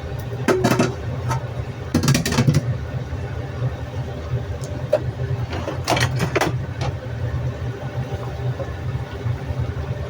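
Clattering knocks of a utensil against a wok in three short bursts, about half a second in, around two seconds in and around six seconds in, over a steady low kitchen rumble.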